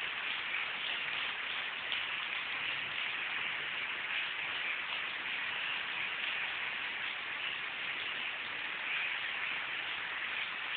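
A rain shower falling steadily, an even hiss without letup.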